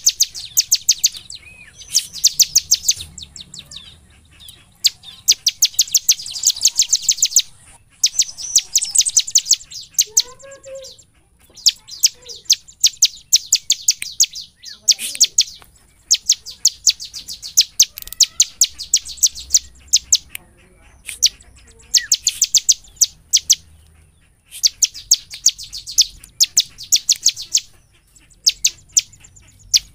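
Bar-winged prinia (ciblek) singing vigorously: runs of rapid, sharp, high-pitched repeated notes, each run lasting one to three seconds, with short pauses between.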